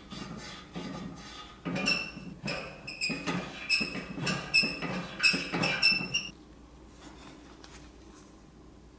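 A lead-test swab is rubbed back and forth on the rusty steel body of an antique toy dump truck. About eight quick scrubbing strokes squeak with each pass and stop about six seconds in.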